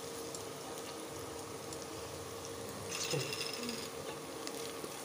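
Sliced onions and ginger frying in hot oil and ghee, a steady gentle sizzle with a faint hum underneath. About three seconds in there is a short, brighter burst of sizzle.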